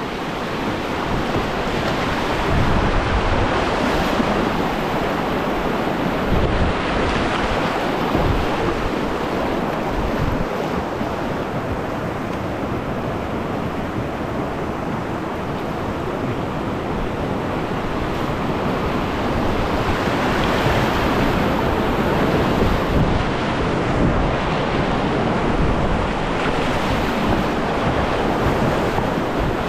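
River whitewater rushing over rocks close around a kayak running a rapid, with low buffeting on the microphone.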